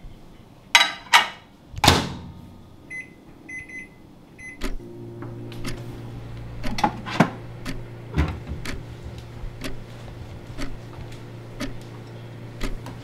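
A countertop microwave oven: a couple of handling clicks and a thump as the door is shut, several short keypad beeps, then the oven starts and runs with a steady low hum. Scattered clicks and light knocks sound over the hum.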